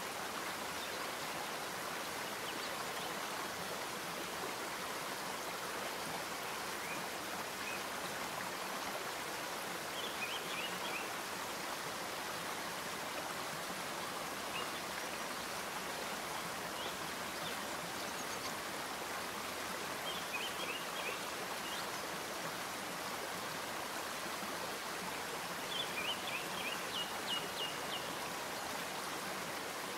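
Steady background hiss with a few faint, short high chirps now and then, about ten, twenty and twenty-six seconds in.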